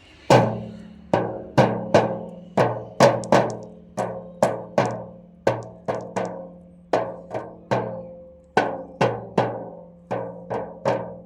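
Dhol beaten with sticks: a run of sharp drum strikes at uneven spacing, roughly two a second, each ringing briefly with a low drum tone.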